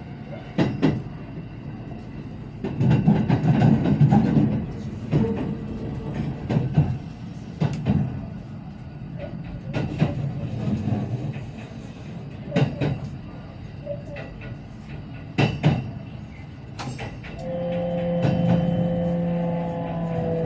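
Kintetsu limited express train running into a station, heard from inside the car: a steady rumble with irregular sharp wheel clacks over rail joints and points. Near the end a steady hum comes in, its pitch falling slowly as the train brakes to a stop.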